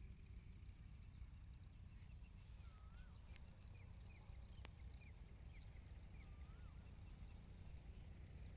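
Faint bird calls: many short chirps and, twice, a rising-and-falling whistle. Under them is a steady low rumble, with two faint clicks near the middle.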